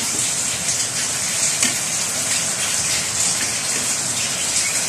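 Steady hiss of heavy rain mixed with a butter-and-milk sauce bubbling and sizzling in a pan.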